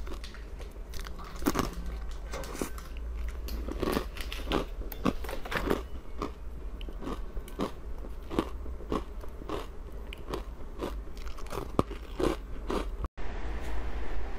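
Close-miked crunching and chewing of ice, bitten and crushed between the teeth in an irregular run of sharp crunches. The sound drops out briefly near the end.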